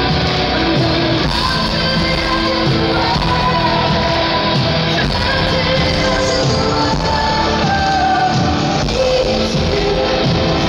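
Live symphonic metal band playing, a female lead vocalist singing long held notes over guitars, keyboards and drums, recorded from the audience.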